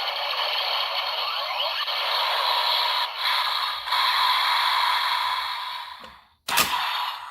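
Electronic sound effect played through the small speaker of a Bandai DX Cyclone Riser toy belt: a steady whooshing noise with a few sliding tones that fades out about six seconds in, followed by a sharp hit near the end.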